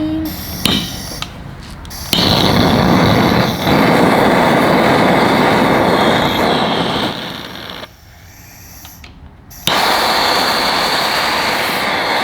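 Handheld gas torch burning with a loud, steady rushing hiss that starts about two seconds in, drops away for about two seconds near the middle, then comes back.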